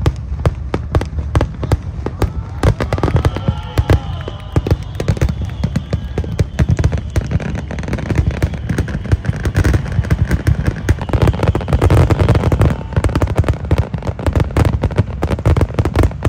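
Large fireworks display going off in a dense, unbroken barrage: rapid bangs and crackles of bursting shells over deep booms.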